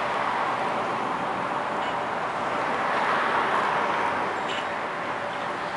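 Road traffic noise: an even hiss of passing vehicles that swells and eases off in the middle.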